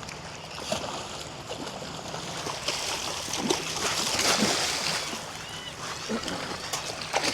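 A hooked jack splashing and thrashing at the water's surface as it is brought in on the line. The splashing grows louder from about three seconds in.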